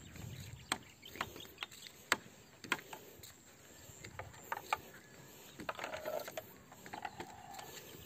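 Bamboo pole footbridge clicking and creaking under someone's footsteps: irregular sharp clicks, with a couple of short creaks near the end.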